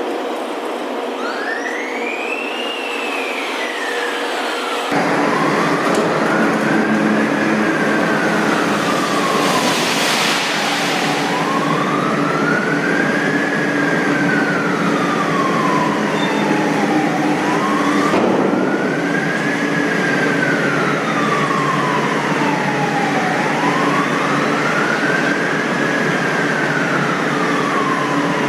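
A wailing siren rising and falling in pitch, roughly one cycle every six seconds, over a loud steady industrial din. The background noise changes abruptly about five seconds in and again near eighteen seconds.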